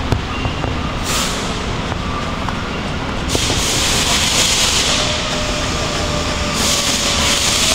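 A steady low machinery rumble with a loud rushing hiss over it. The hiss starts abruptly about a second in, gets much louder about three seconds in, eases off briefly and comes back strongly near the end.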